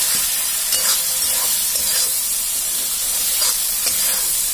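Onion, tomato and spice masala sizzling steadily in hot oil in a kadai as it is fried and stirred with a spatula, with a few light scrapes of the spatula against the pan.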